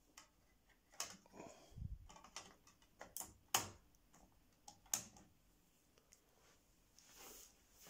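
Portable CD player being loaded: small plastic clicks and knocks as a disc is pressed onto the spindle and the lid is snapped shut, the sharpest clicks about three and a half and five seconds in, with a soft rustle near the end.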